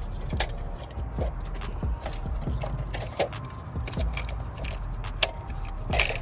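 Irregular metallic clinks and taps of hand tools and engine parts being handled during an engine strip-down, several a second, over a low steady hum.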